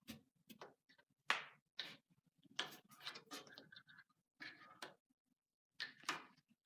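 Irregular short clicks, taps and scrapes of parts and tools being handled, with brief silent gaps between them.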